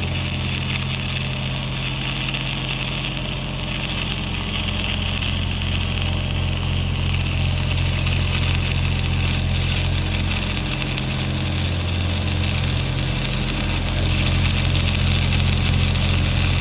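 Stick (SMAW) welding arc with E6010/E7010 cellulose rod crackling and hissing steadily, over the steady low hum of a running engine.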